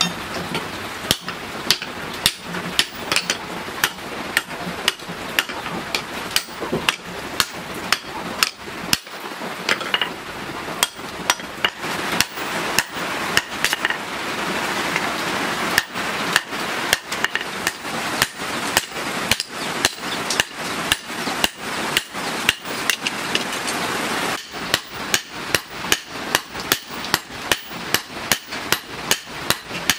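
Hand hammer blows on red-hot leaf-spring steel on an anvil, forging an axe head: a steady run of sharp metal strikes, about two to three a second, with a couple of short pauses.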